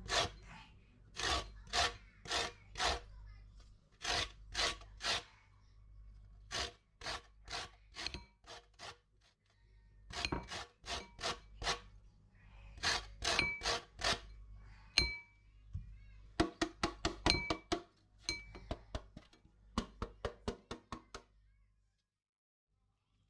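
Lemon peel being grated on a stainless steel box grater: rasping strokes in quick bursts of three to five. In the second half the strokes come faster, with short metallic clinks ringing among them.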